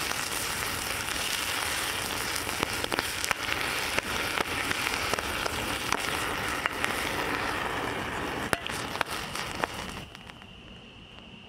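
Self-igniting chemical fire from a powder-and-liquid mix in a cup, burning with a steady rush and many sharp crackles and pops, dying down near the end.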